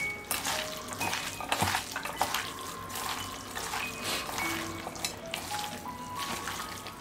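Wet squelching and rustling of a hand mixing raw chicken pieces with sliced onions and spice powders in a steel bowl, under background music with a simple melody of held notes.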